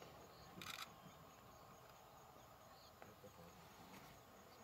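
Near silence: quiet bush ambience with faint insect chirps and a brief rustle about half a second in.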